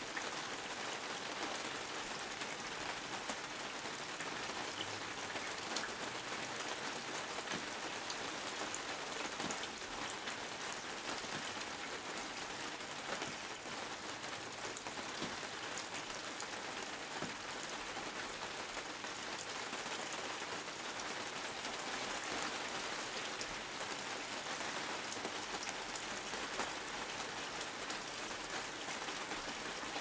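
Steady rain: an even hiss with faint scattered ticks of drops.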